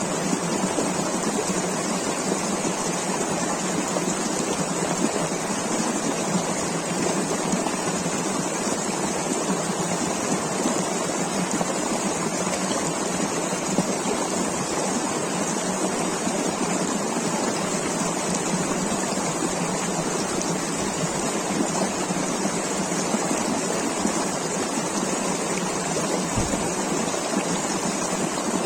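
Cheshme-sabz river flowing, a steady, even rush of moving water.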